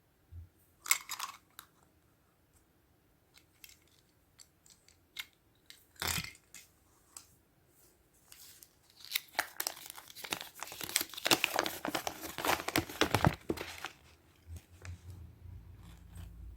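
Foil wrapper of a Kinder Surprise chocolate egg being crinkled and torn off by hand. Scattered crackles and a knock about six seconds in, then a dense run of crinkling for about five seconds.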